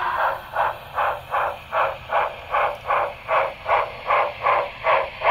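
Sound-equipped (DCC) model of a Union Pacific 4-8-4 FEF-3 steam locomotive playing steam exhaust chuffs through its small onboard speaker, a steady beat of about two and a half chuffs a second as it runs.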